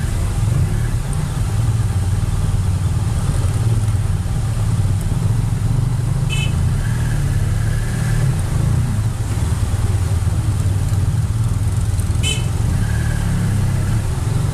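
Big adventure motorcycle engine running at low revs as the bike crawls along at walking pace, a steady low rumble close to the microphone. Two brief high-pitched sounds cut in, about six seconds in and again about twelve seconds in.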